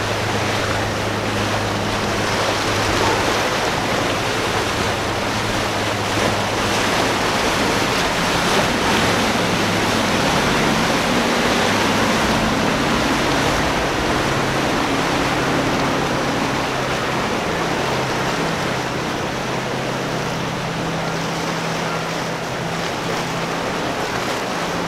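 Outboard boat engines running with a low drone that shifts in pitch as the boats pass, over the rush of their wake and surf, with wind on the microphone.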